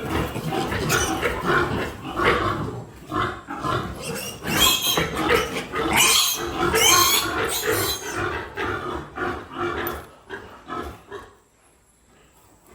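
Piglets squealing loudly and repeatedly, with pig grunts underneath, as they are separated from the sow. The squealing is most intense in the middle and dies away about 11 seconds in.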